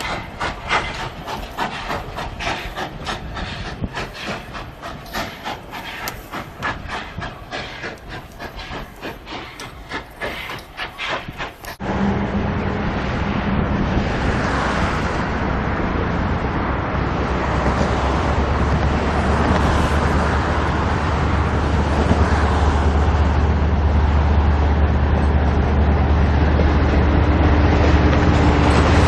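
Train on rails: a rapid, uneven run of clacks for about twelve seconds, then, after an abrupt change, a steady low rumble with a hum that slowly grows louder.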